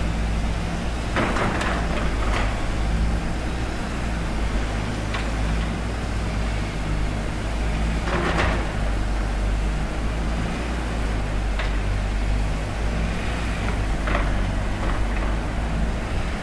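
Construction site: a heavy machine's engine running steadily in a low drone, with scattered knocks and bangs every few seconds.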